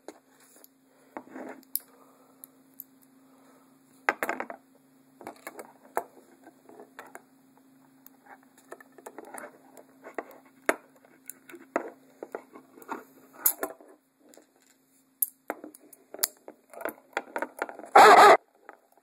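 Bobby pins working inside the keyhole of a Smith & Wesson handcuff: irregular small metallic clicks and scrapes as the lock is picked, with a louder clatter of metal near the end.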